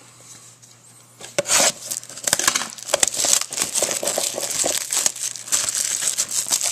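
Plastic shrink-wrap being torn and crumpled off a sealed cardboard box, a dense crinkling and crackling that starts about a second in.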